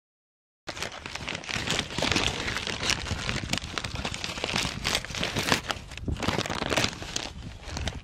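Paper bag crinkling and rustling right up against the microphone as it is handled, a dense run of crackles that starts about a second in.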